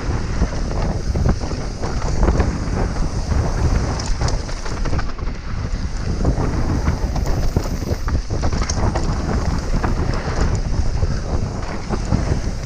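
Wind rushing over the microphone of a bike-mounted camera on a fast downhill mountain-bike descent, with tyres running over dirt and loose rock and the bike rattling and knocking over bumps throughout.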